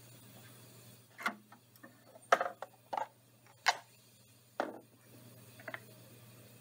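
A benchtop microcentrifuge's lid being opened and a plastic tube rack handled: about six sharp plastic clicks and knocks in four seconds, over a faint steady low hum.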